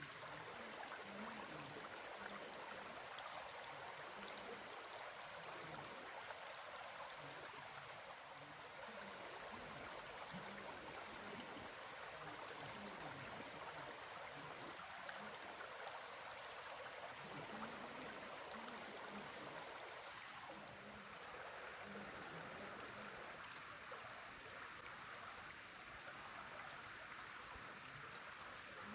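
Steady rush of flowing water, like a stream, its tone shifting slightly about two-thirds of the way through.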